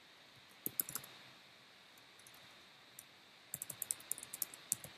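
Typing on a computer keyboard. A few keystrokes come about a second in, then a quick run of keystrokes in the last second and a half.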